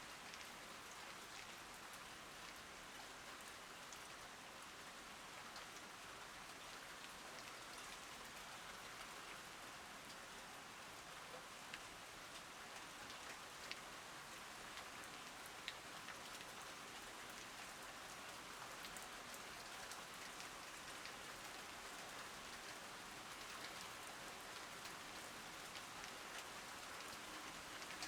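Steady rain falling on garden plants: an even hiss with a few sharper drop hits standing out now and then.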